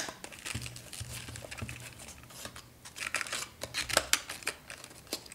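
Cardboard retail box and its plastic insert being handled and pried open: scattered scraping, rustling and small clicks, busiest around three to four seconds in.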